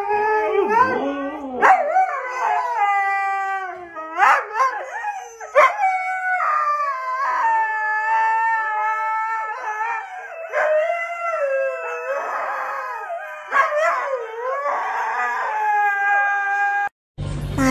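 Husky howling in long, wavering, drawn-out 'woo-woo' howls that rise and fall in pitch, with short breaks between them, the dog's 'talking' vocalisation. It cuts off suddenly near the end.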